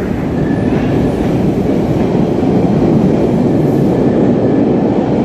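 MBTA Orange Line subway train pulling out of an underground station: a steady rumble of motors and wheels with some wheel clatter, growing louder over the first few seconds and then holding.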